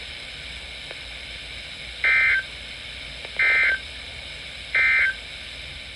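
Three short bursts of Emergency Alert System SAME digital data tones, about 1.3 seconds apart, over steady broadcast hiss and hum. They are the end-of-message signal closing the tornado warning.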